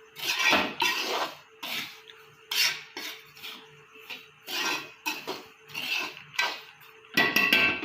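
A utensil scraping and stirring roasted semolina around a metal kadai in repeated short strokes, roughly one to two a second; the semolina is roasted golden and sandy.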